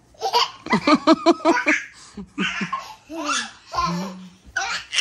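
A child laughing: a quick run of short ha-ha bursts about a second in, then more broken laughter.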